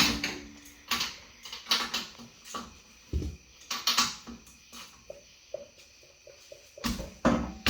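Hand wrench tightening the hub bearing mounting bolts: a series of sharp metallic clicks and clanks, with a run of small, evenly spaced ticks in the second half.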